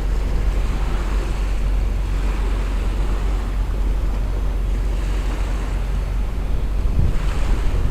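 Wind buffeting the microphone with a steady low rumble, over the wash of sea waves that swells and fades every few seconds.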